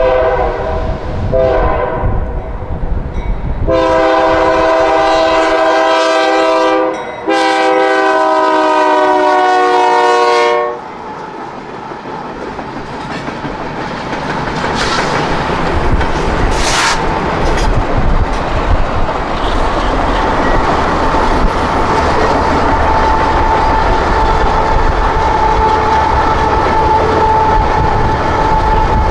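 Horn of two BNSF diesel locomotives leading a freight train: a few shorter notes, then two long blasts of the chord, about three seconds each with a short break between. Then the locomotives running hard past and alongside, with wind noise, and from about twenty seconds in a steady whine from their turbochargers as the train climbs a grade.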